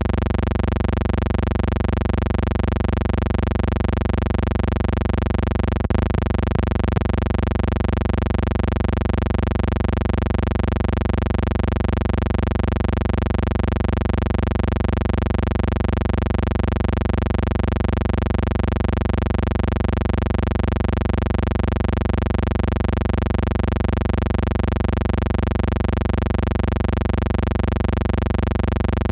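A steady, unchanging low hum with many even overtones, with a brief crackle of clicks about six seconds in.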